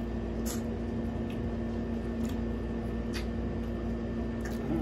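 Steady background hum with a few short, faint wet clicks from lip smacking and finger sucking while eating shrimp and crab by hand.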